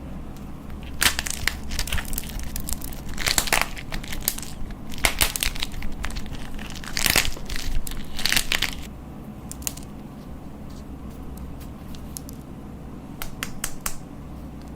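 Crunchy slime being squeezed and pressed, giving dense bursts of close crackling and crunching for most of the first nine seconds, then a quieter stretch with a few scattered crackles near the end.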